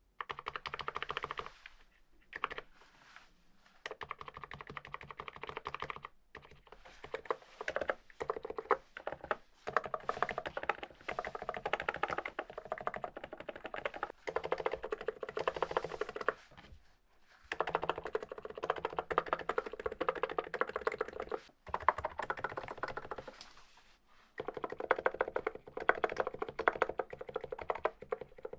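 Typing on an Archon E1 PRO contactless (무접점) gaming keyboard: fast, dense runs of key clacks, broken by several short pauses.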